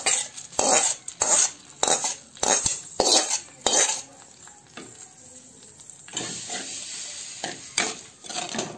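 A metal ladle scraping and tapping a hot coconut-oil tempering of mustard seeds, curry leaves and dried chillies out of a small pan into a clay pot of yogurt-coconut curry, in a quick run of strokes, with the oil sizzling as it meets the curry. From about six seconds there is a softer, steadier sound of a spoon stirring the tempering in.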